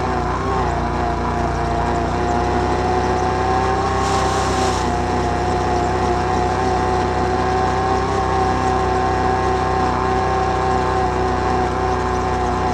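A Can-Am Outlander 1000 ATV's V-twin engine running at an even, steady speed while riding. There is a brief hiss about four seconds in.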